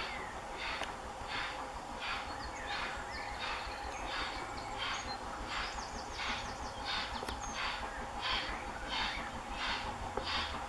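Steam locomotive working a train toward the listener, its chimney exhaust beating evenly at about three beats every two seconds.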